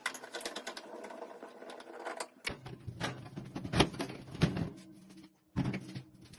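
Handling noises: rustling with a run of sharp clicks and knocks, the loudest about four seconds in, with a brief pause a little after five seconds.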